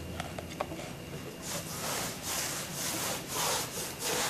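Paintbrush scrubbing red glaze over a wetted, cracked textured-plaster wall. Several scrubbing strokes swell and fade in turn.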